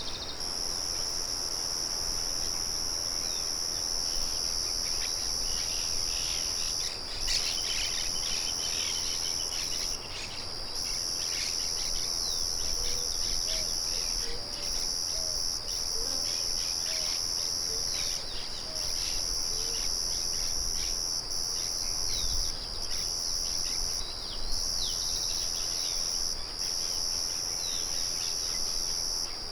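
Crickets trilling steadily in two high pitches, the trill dropping out briefly several times, with scattered short bird chirps over it and a few low bird notes in the middle.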